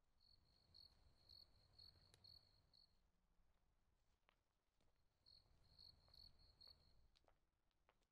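Faint cricket chirping at night: two runs of short high chirps, about two a second, with a pause of about two seconds between the runs, over a low background rumble.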